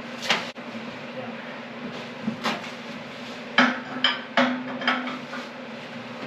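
Steel engine-stand parts clanking as they are handled: a string of sharp metallic knocks, the loudest a little over halfway in.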